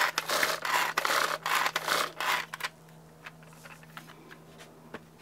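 Hand-powered Tupperware mini chopper being worked hard, its blades whirring through basil, garlic and seeds in quick repeated strokes, about three a second. The strokes stop a little under three seconds in, leaving a few faint clicks.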